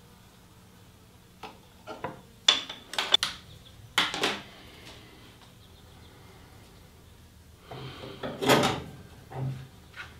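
Knocks and clinks of metal and wood parts being handled on a table saw as its blade is changed: the throat plate lifted out, the blade taken off the arbor, and the arbor washer and nut set down. Sharp knocks come in a cluster a couple of seconds in, with a longer clatter about eight seconds in.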